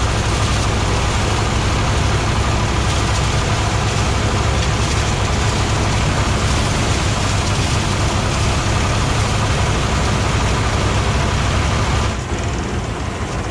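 Engine-driven mobile rice thresher running: a steady, loud low engine hum under a dense noise from the threshing drum and blower. About twelve seconds in, it gets somewhat quieter and loses its higher part.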